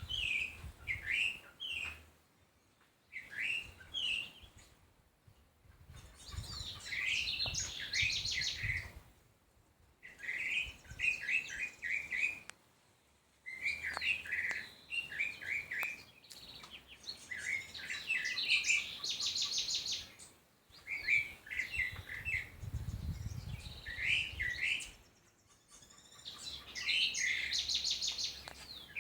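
Songbird singing in repeated bursts of quick chirps and short trills, each phrase a couple of seconds long, with brief pauses between them.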